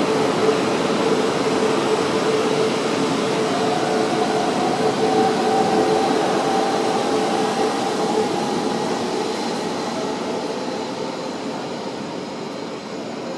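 E4 series Max Shinkansen pulling away, its traction motors giving a whine that rises slightly in pitch over the wheel and running noise. The sound fades steadily through the second half as the train draws away.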